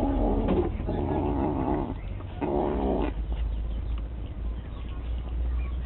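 Domestic cat growling: three drawn-out low warning growls in the first three seconds, then quieter.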